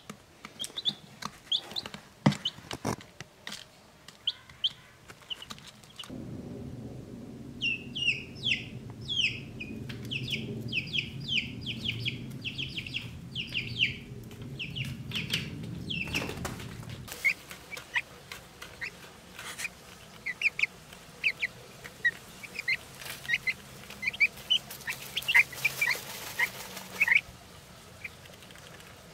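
Black Sex Link (Black Star) chicks peeping: many short, high peeps that fall in pitch, densest in the middle and sparser and lower toward the end. A low steady hum runs under the peeps for about ten seconds in the middle.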